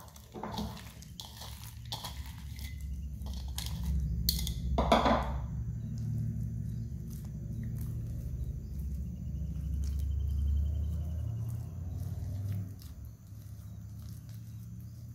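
Hands squishing and kneading sticky glitter slime full of small beads: wet clicks and crackles, thickest in the first five seconds with the loudest about five seconds in, over a low rumble of handling that eases near the end.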